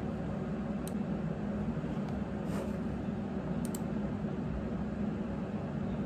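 Steady low rumble of a car, heard as cabin noise, with a couple of faint clicks.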